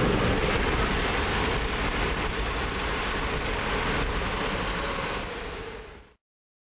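Steady road and wind noise from a car driving along a highway, a rushing hiss with a low rumble, which fades and cuts off about six seconds in.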